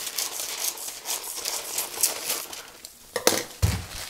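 Scissors cutting through baking paper, with the sheet rustling and crinkling in quick, uneven snips; a few dull knocks near the end.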